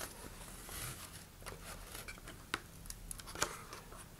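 Faint rustle of a paper towel wiping a model rocket's cardboard body tube, with a few small sharp clicks as the rocket is handled.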